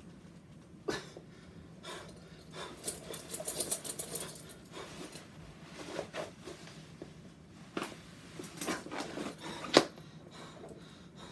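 Canvas straitjacket rustling while its leather straps and metal buckles rub and clink as the wearer struggles free, with hard panting breaths. Irregular scuffs and clicks come throughout, and a sharp click a little before the end is the loudest.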